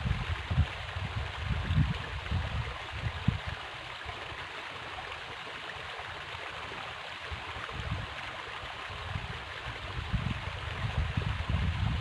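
River water flowing steadily, with irregular low rumbles in the first few seconds and again near the end.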